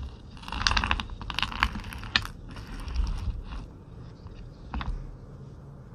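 Crisp crackling and clicking from crunchy chocolate-coated snacks: a dense run of crunches in the first two seconds, then a few scattered clicks.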